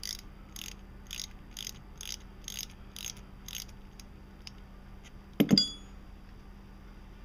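Ratchet wrench clicking about twice a second as a T30 Torx bit backs out the screw holding the camshaft position sensor target magnet; the clicks thin out to a few faint ticks about four seconds in. About five and a half seconds in comes a single sharp metallic clank with a brief ring.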